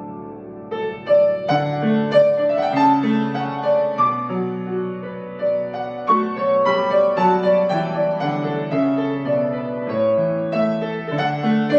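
Solo piano playing a hymn arrangement in slow chords over a held bass line, quiet for the first second, then fuller and louder chords.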